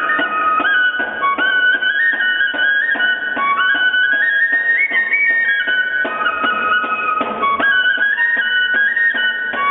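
Peruvian folk music: a flute playing a melody in held, stepping notes over steady drum beats.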